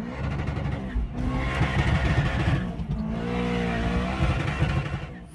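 A car engine revving in a few surges, its pitch climbing and falling, fading out near the end.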